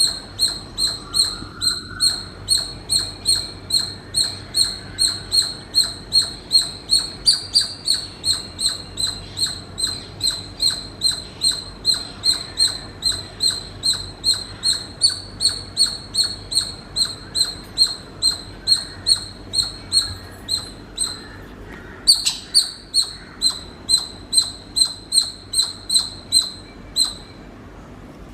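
Squirrel calling in a long series of short, high-pitched chirps, about two a second, with a brief pause about three-quarters through and another near the end.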